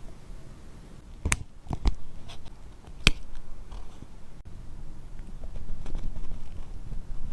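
A handful of sharp little clicks and taps of small metal tools working on a watch over a low background rumble; the loudest click comes about three seconds in.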